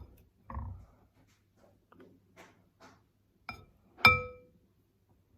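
A few soft knocks and light clicks of containers being handled, then about four seconds in a sharp ringing clink of something hard striking a bowl or jar, its ring fading over about half a second.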